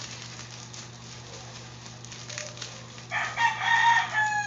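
A rooster crowing once, about three seconds in: one long crow that dips in pitch at its end.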